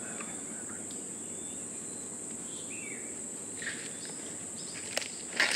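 Forest insects droning steadily at a high pitch, with a short falling chirp near the middle. A couple of sharp crackles come near the end, the loudest just before it ends.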